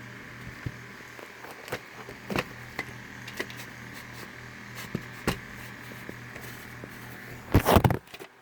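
Scattered sharp plastic clicks and taps from a VHS case being handled, over a steady low hum, with a louder clatter near the end that cuts off suddenly.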